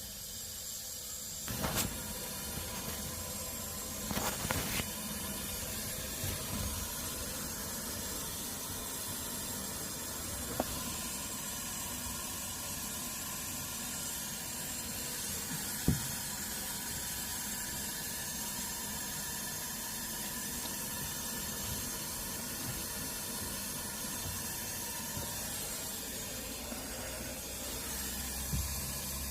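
Water running steadily with a hiss, as from an open tap or pipe, with a few short knocks about two seconds in, around four to five seconds in, and once near the middle.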